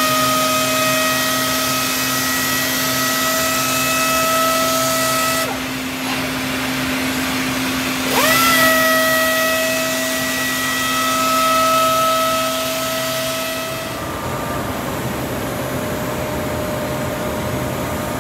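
Orbital sander on a robotic arm whining as it spins up and then running at a steady pitch with a hiss of sanding, working on solid wood doors. It stops about five seconds in and spins up again a couple of seconds later, over a steady lower hum. Both stop about fourteen seconds in, leaving a quieter machine noise.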